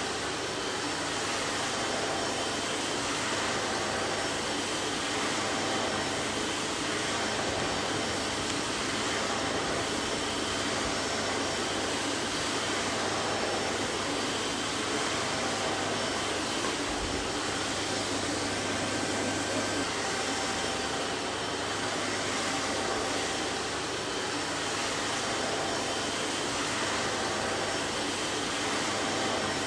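Vacuum cleaner running steadily: an even rushing of air with a low hum underneath and no change in speed.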